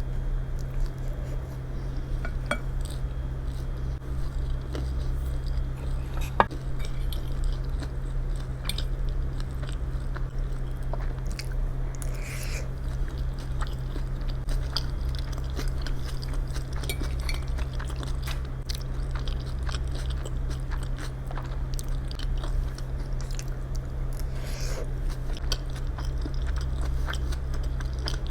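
A person chewing and biting food, with many small clicks and one sharper click about six seconds in, over a steady low hum.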